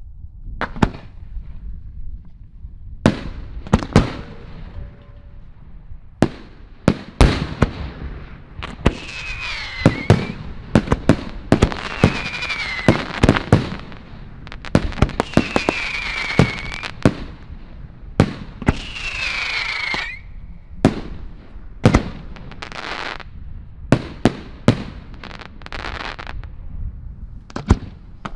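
A fireworks display: a rapid, irregular series of sharp bangs from launches and aerial bursts over a bed of crackling. Four whistles falling in pitch, each about a second long, come between about ten and twenty seconds in.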